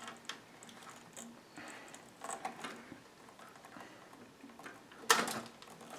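Small clicks and handling noises of computer parts being worked inside a case, then one sharp snap about five seconds in as a part comes free.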